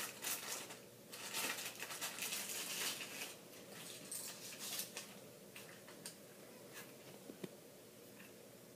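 Thin plastic packaging rustling and crinkling as mini speed-stacking cups are unwrapped, followed by scattered light clicks of the small plastic cups being handled.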